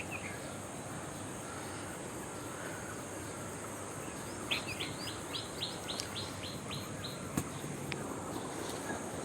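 A bird sings a rapid series of about nine similar notes, roughly four a second, starting about halfway through, over a steady high-pitched insect drone and an even background rush.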